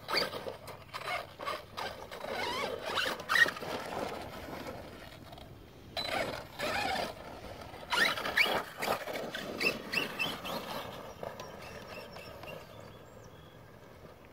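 ARRMA Outcast 4S electric RC truck driven in short bursts of throttle: its brushless motor gives a high whine that rises and falls in pitch, over the clatter and knocks of its tyres and chassis on rock and gravel. It quietens over the last few seconds.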